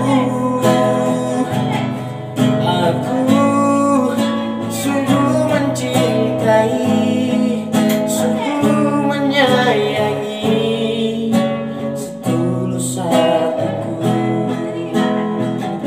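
Acoustic guitar being played under a male voice singing a slow melody with no clear words.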